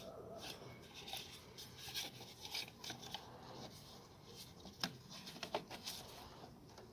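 Corrugated rubber air intake hose rubbing and scraping as gloved hands work it onto the air filter box outlet, with two sharp clicks about five seconds in.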